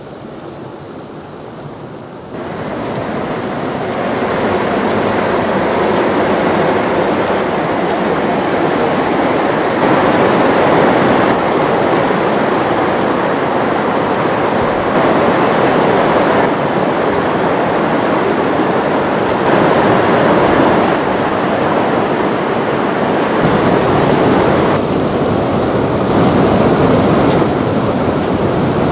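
Steady rush of a river flowing over rocks for the first couple of seconds. Then a louder, continuous patter of water dripping from a grotto's mossy ceiling into a hot-spring pool, like heavy rain.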